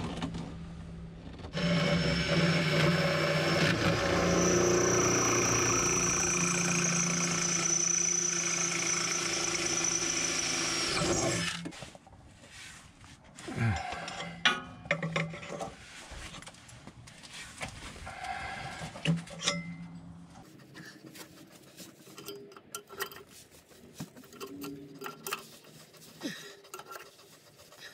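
A power drill running steadily with a high whine for about ten seconds, drilling into a seized bump stop, then stopping abruptly. Scattered light clicks and rattles of hand work on the suspension parts follow.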